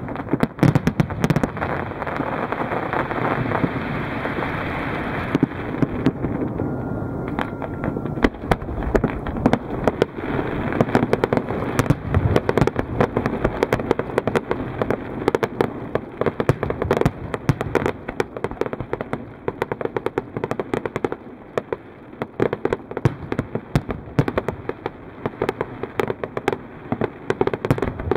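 Fireworks display: aerial shells bursting in rapid, overlapping succession, a dense run of bangs and crackling pops with no pause.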